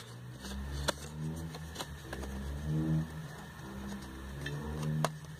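A faint voice in the background with a low steady hum, and a few light clicks as a small perfume box is handled.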